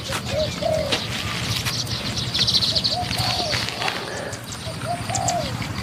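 Spotted doves cooing: short, low, arched coos in small groups, about three times. Scattered clicks and rustles run underneath, and there is a brief high buzz about halfway through.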